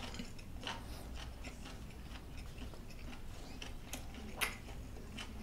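A person chewing a mouthful of food with soft, wet mouth clicks, and one louder smack near the end.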